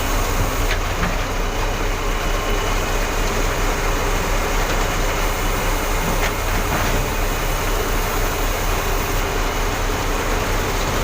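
Concrete pump truck's diesel engine running steadily under load, with a couple of faint clicks.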